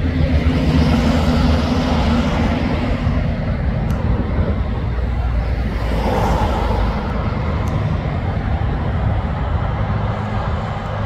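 Heavy truck and trailer driving past with other traffic: a steady low engine drone under rushing tyre noise that swells twice as vehicles go by.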